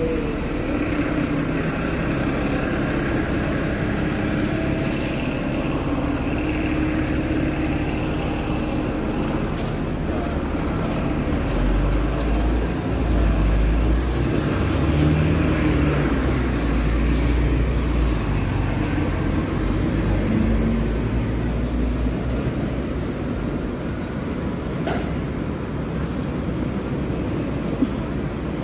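City street ambience: steady traffic noise, with a heavier low rumble for several seconds in the middle.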